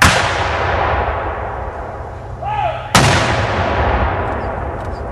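Two Civil War-era muzzle-loading field cannons firing about three seconds apart. Each shot is a sharp boom followed by a long echo that rolls through the woods and fades slowly.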